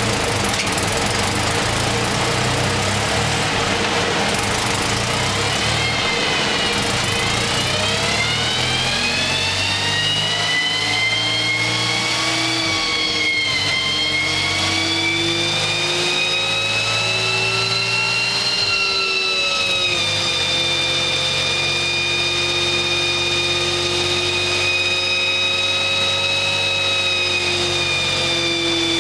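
BMW R80 air-cooled flat-twin boxer engine running under load on a chassis dynamometer. A whine rises with wheel speed from about six seconds in, dips briefly, climbs again, drops back at about twenty seconds and then holds steady.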